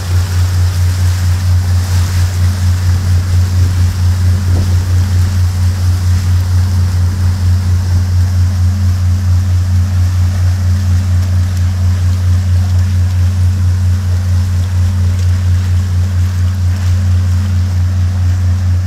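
The Columbia Gorge Sternwheeler's stern paddlewheel churning the river close ahead: a steady low rumble that pulses evenly several times a second, over the rush of the broken wake water.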